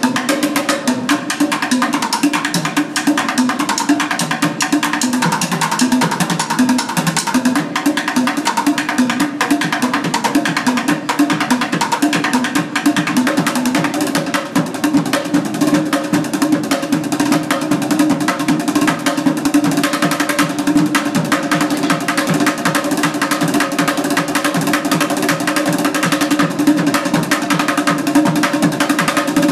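Two drummers beating stacks of upturned plastic buckets with drumsticks, playing a fast, dense rhythm of stick hits without a break.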